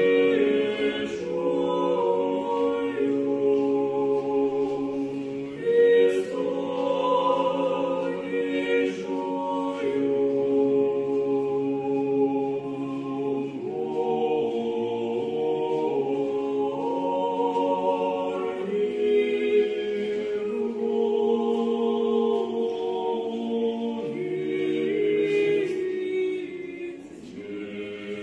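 Orthodox church choir singing unaccompanied liturgical chant: several voices in sustained chords that change every second or two, with a short breath between phrases near the end.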